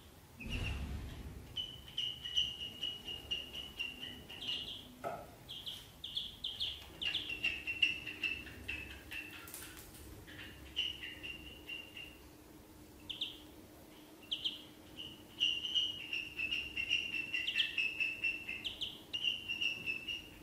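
Ducklings peeping: runs of short, high-pitched peeps in quick succession, with brief gaps between runs. There is a soft low thump near the start, and a faint steady hum underneath from about a third of the way in.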